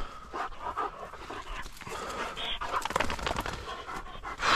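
A hunting dog panting hard in short, repeated breaths, worked up after a retrieve. A louder rush of noise comes in at the very end.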